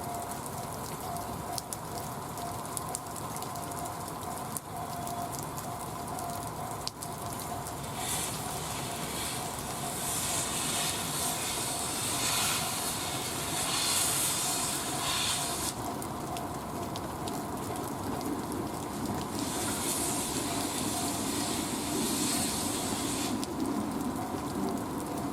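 Steam locomotive standing or moving slowly, hissing steam in two long releases of several seconds each, over a steady background whine and noise.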